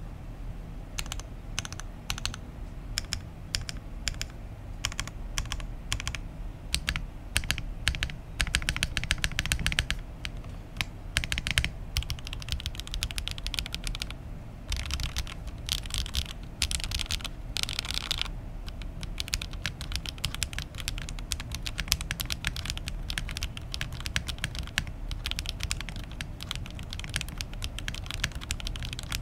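Typing sound test on an Oasis65 mechanical keyboard with a polycarbonate plate, case foam added and Daye ABS double-shot keycaps: a dense run of key clacks starting about a second in, with some faster flurries.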